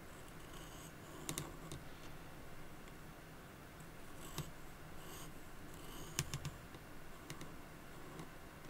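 A wooden pencil being sharpened by hand with a knife blade: short, crisp cutting clicks as wood shavings are sliced off, with faint scraping in between. The sharpest cuts come about a second in and again about six seconds in.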